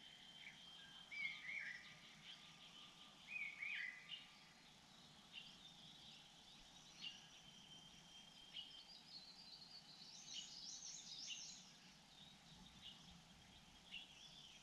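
Faint bird chirps and calls over quiet outdoor ambience: a few short down-slurred notes early on, then scattered high chirps, with a quick run of rapid chirping about ten seconds in.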